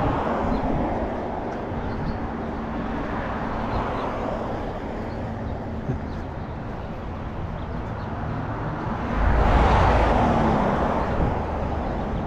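Road traffic on a multi-lane street: a steady wash of passing cars' tyre and engine noise. About nine seconds in it swells louder with a deep rumble as a vehicle passes close, then eases off.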